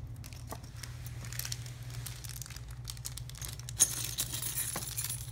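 Small plastic packaging crinkling and rustling as a doll hair clip is unwrapped by hand, with scattered small clicks and one sharp click a little before the end. A low steady hum runs underneath.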